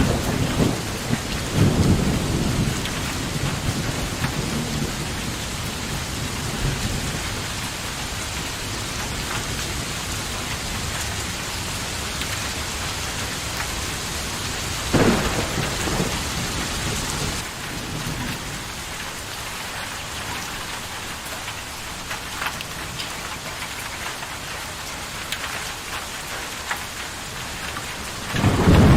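Steady rain falling, with thunder: a rumble dying away over the first couple of seconds, a sharp crack about halfway through, and a loud rumble building near the end.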